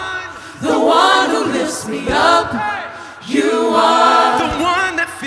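Worship singers and congregation singing a slow worship chorus, mostly voices with light accompaniment, in two long sung phrases with a short pause between.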